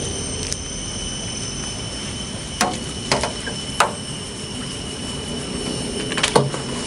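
A steady background drone with an even high-pitched whine, and four sharp knocks and splashes as a small tilapia is hooked and swung up out of the pond on a pole line.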